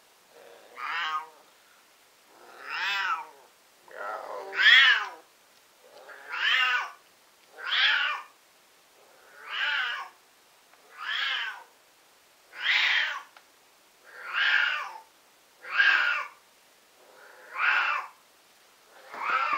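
Siamese cat yowling over and over, about a dozen long, wavering calls, one every one and a half to two seconds. The owner puts the shrieking down to the cat being in heat.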